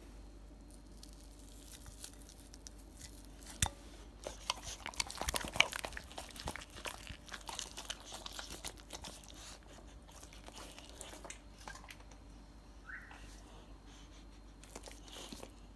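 A boxer dog eating pieces of boiled chicken breast from a hand: wet chewing and lip-smacking with scattered clicks, busiest a few seconds in, along with fingers tearing the chicken. A short rising squeak near the end.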